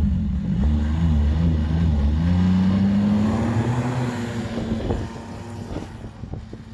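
Ski-Doo Grand Touring snowmobile engine revving hard under load as it drags itself and a cargo sled out of deep snow. Its pitch climbs for a couple of seconds, then the engine sound fades as the machine drives off.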